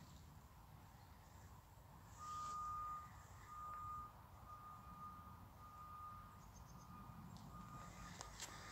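Faint vehicle reversing alarm: a single-pitch electronic beep repeating a little faster than once a second, starting about two seconds in, with the first two beeps the loudest.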